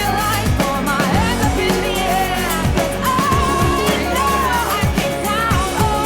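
Pop song with a sung melody over drums and a steady beat.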